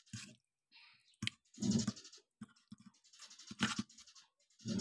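Close-up eating sounds: a metal fork scraping and clicking against a ceramic plate as spaghetti is twirled, broken by short, louder mouth sounds of chewing.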